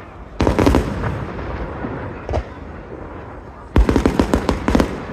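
Aerial fireworks shells exploding: a heavy bang about half a second in, a single bang near the middle, then a rapid string of sharp cracks near the end.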